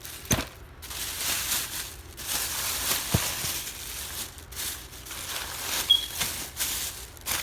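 Firework packaging being handled, crinkling and rustling, with a couple of light knocks.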